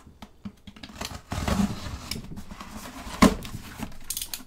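Cardboard shipping box being opened: a box cutter slitting the packing tape and the cardboard flaps scraped and pulled open, with a sharp knock about three seconds in.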